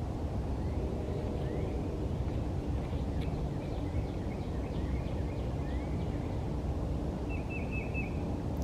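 Birds calling over a steady low outdoor rumble: a string of short, rising chirps, then a quick run of high repeated notes about seven seconds in.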